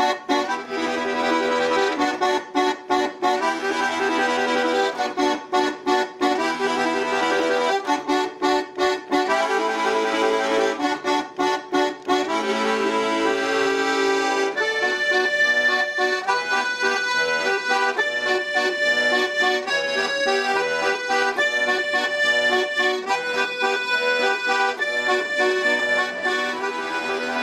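Button accordion played solo: short rhythmic chords with brief breaks between them, then, about halfway through, a steadier melody of held, higher notes.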